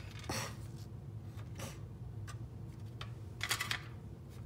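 A few light clicks and taps of hard plastic model-kit parts being handled and set down on a metal tray, the loudest cluster near the end.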